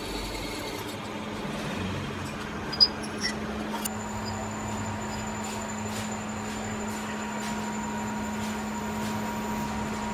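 A metal lathe's deep spindle rumble dies away in the first second, leaving a steady low machine hum. A single sharp knock comes about three seconds in, with a lighter one just after.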